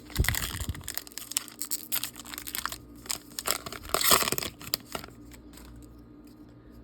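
Wrapper of a baseball trading-card pack crinkling and tearing open as the cards are handled, in a run of crackly rustles with the loudest rip about four seconds in. It settles to quiet handling near the end.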